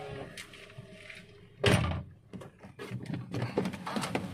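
A car's steady running hum cuts off at the start, then a car door shuts with one heavy thud about a second and a half in, followed by lighter knocks and rustling.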